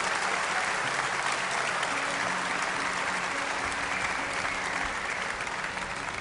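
Large audience applauding steadily, easing off slightly near the end, with a few faint low held notes underneath.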